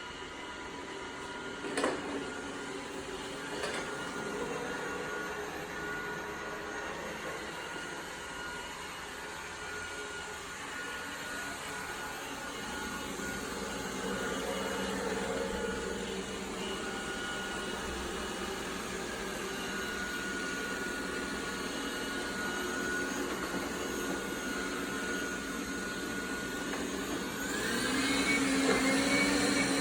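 Dreame Bot L10 Pro robot vacuum running steadily with a faint whine, a sharp click about two seconds in. Near the end its suction motor ramps up with a rising whine to a louder level: the carpet boost switching on though the robot is not on carpet.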